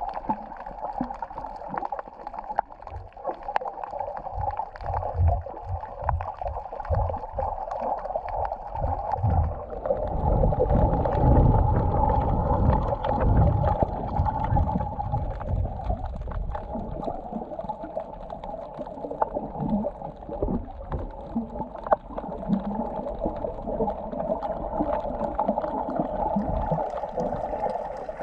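Muffled underwater water noise picked up by a camera in a waterproof housing while snorkeling: a steady dull hiss with uneven low thumps and sloshing from movement through the water, heaviest around the middle.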